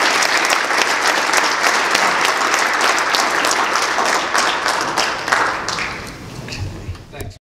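Audience applauding, a dense clatter of many hands clapping that thins out over the last second or so and then cuts off abruptly.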